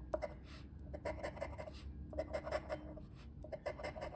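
Scratch-off lottery ticket being scratched: short runs of quick rasping strokes with brief pauses between them.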